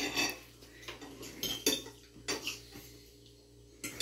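Cutlery clinking and scraping on a plate as someone eats, in irregular sharp taps. Several come close together in the first couple of seconds, then one more near the end.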